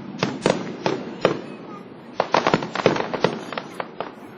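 Aerial fireworks bursting: a series of sharp bangs, with a quick run of many bangs close together about halfway through.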